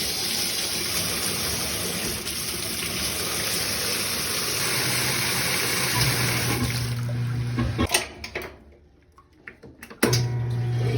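Top-load washing machine filling, water rushing steadily into the tub. About six seconds in, a steady low hum takes over, the drain pump running, then drops out about two seconds later and comes back near the end. The machine only fills and drains, with no agitation or spin: a sign of a sheared motor coupler.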